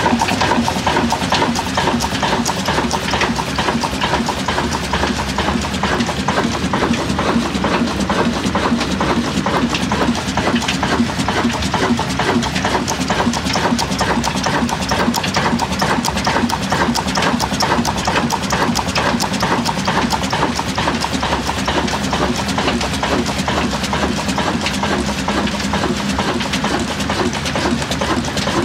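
1950 Ruston Hornsby 35 HP diesel engine running steadily at close range, its moving parts making a fast, even mechanical clatter.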